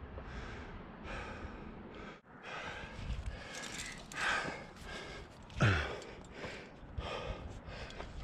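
A climber breathing hard with effort while jamming up a crack, a string of heavy exhales about once a second, with a louder voiced sigh that falls in pitch a little past halfway.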